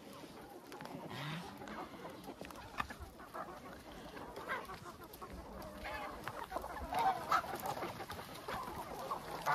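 A large flock of free-range chickens clucking as they feed, many short calls overlapping, growing busier and louder in the second half.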